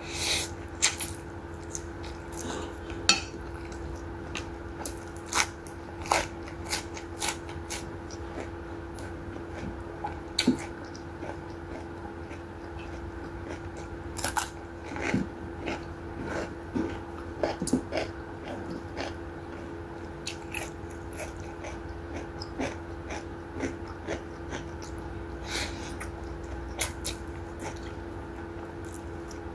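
Close-miked eating: wet chewing and slurping of saucy instant noodles, with a crisp bite into fresh cucumber about halfway through. A steady low hum runs underneath.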